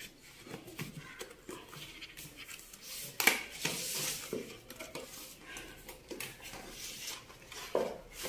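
Cardboard packaging of a GoPro Hero 11 box being handled and opened by hand: scraping, sliding and light clicks, with a sharper knock about three seconds in.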